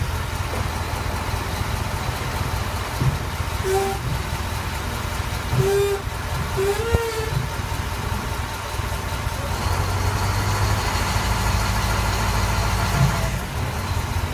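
Heavy dump truck's diesel engine running with a steady low rumble. It grows louder from about ten seconds in, then drops back near the end. A few short pitched calls and a sharp click come through around the middle.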